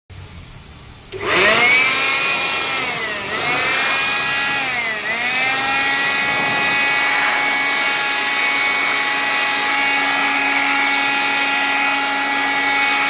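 Handheld electric air blower starting up about a second in and running with a steady high whine. Its pitch sags and recovers twice early on, as it blows dust out of an overheating ASIC miner's fans and heatsinks.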